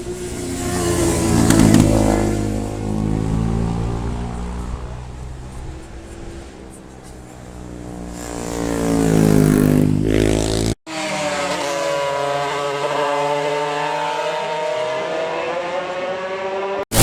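Racing motorcycles at full speed passing close by, their engine notes rising as they approach and dropping as they go past. The sound cuts off abruptly about two-thirds of the way through, and a steadier, wavering engine note follows.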